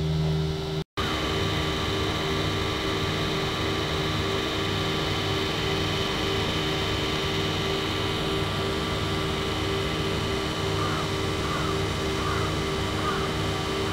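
Steady low hum over a noise bed, with the audio cutting out for a moment about a second in. Near the end there is a row of about five short, faint chirps, evenly spaced.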